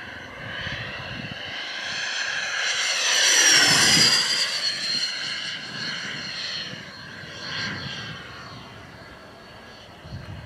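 Large foam RC F-16 model jet, electric ducted fan powered, making a fast pass overhead. Its whine builds to a peak about four seconds in, falls in pitch as it goes by, then fades with a smaller swell near the end.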